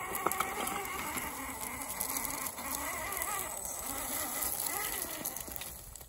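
Small electric motor and drivetrain of a scale RC crawler truck whining, its pitch rising and falling again and again with the throttle, over scattered clicks of tyres on stones. The sound cuts off abruptly at the end.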